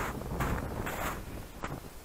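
Wind rumbling on the microphone, with about four soft crunching footsteps in snow.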